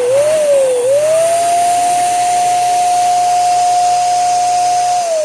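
Electric balloon pump inflating a balloon: a loud motor whine over a rush of air. It dips in pitch twice in the first second, holds steady, then starts to wind down at the end as it is switched off.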